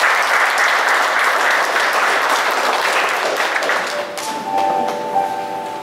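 Audience applauding, tapering off about four seconds in as instrumental music with sustained notes comes in.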